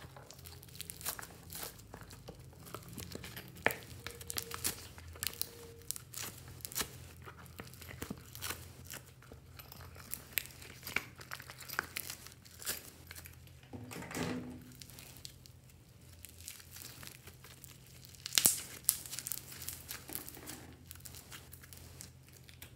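Yellow glittery textured slime being stretched, squeezed and pulled apart by hand, giving many small sharp crackles and sticky pops, loudest about a third of the way in and again near the end.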